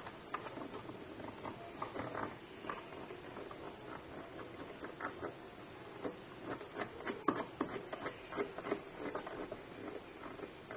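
Faint, irregular light clicks and taps over low background noise, getting denser and a little louder in the second half.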